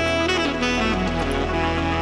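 Background music: a melody over held notes, with a phrase stepping down in pitch in the first second and a half.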